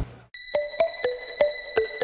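Electronic outro music starting after a brief gap: a simple two-note melody alternating back and forth over steady high tones and an even ticking beat, about three ticks a second.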